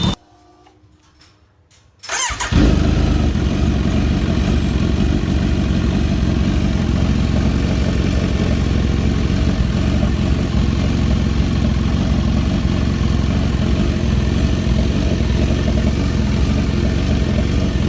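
Kawasaki Z900 inline-four engine starting about two seconds in, then idling steadily, with a new exhaust header gasket fitted and the earlier knocking sound gone.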